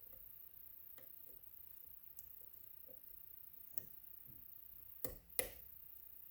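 Faint clicks of a pick and tension wrench working in an Ikon WSW cylinder lock, with two louder clicks close together about five seconds in.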